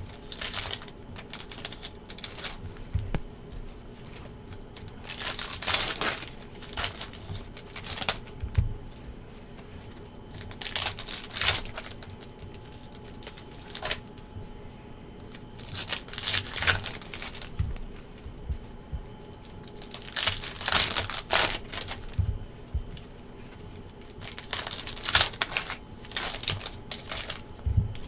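Trading card packs being torn open and their foil wrappers crinkled, in short bursts about every five seconds.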